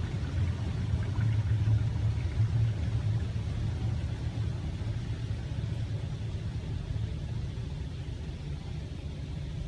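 Automatic car wash spraying water over a car, heard from inside the cabin as a steady low rumble of water pouring on the roof and windshield, slowly easing near the end.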